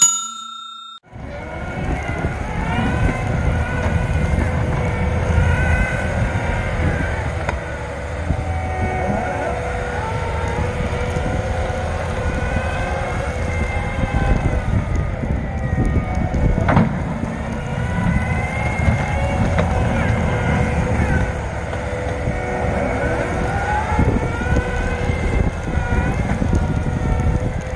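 Caterpillar 299D3 compact track loader's diesel engine working hard as it pushes snow with its plow, a steady low rumble whose pitch rises and falls again and again. A single sharp clank comes about 17 seconds in.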